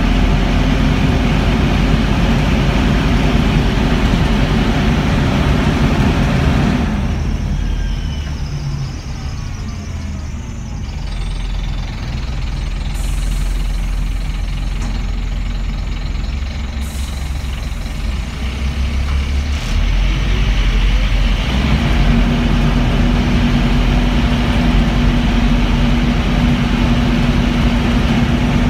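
Scania N230UB bus's engine cooling fan roaring at full speed over the low diesel engine rumble, heard from inside the saloon. The roar cuts out about seven seconds in and comes back on some fifteen seconds later. This is the random roaring of a fan left running by a broken cooling fan sensor.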